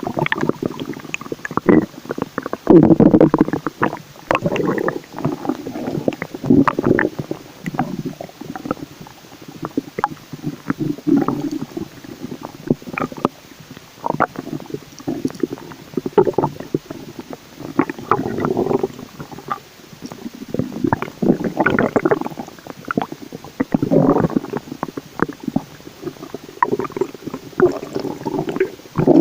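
A human stomach growling and gurgling in irregular bouts of low rumbling, broken by many short pops.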